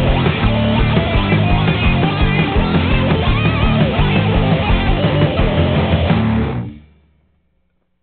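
Background rock music led by guitar, fading out quickly near the end.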